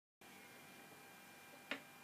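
Near silence: quiet room tone, with one short sharp click near the end from the violin being handled as the player gets ready to bow.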